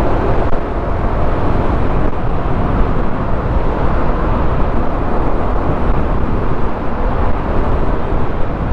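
Steady wind rush over the microphone and road noise from a motorcycle being ridden, dense and low with no distinct engine note standing out.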